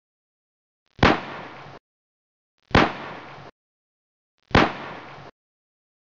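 Three identical sharp hits about two seconds apart, each fading briefly and then cutting off abruptly into dead silence: a percussive sound effect repeated on the edit.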